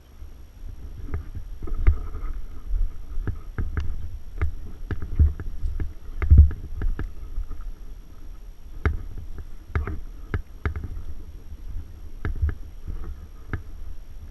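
Irregular low thuds and sharp clicks close to the microphone, the knocks and rustle of a player moving with gear.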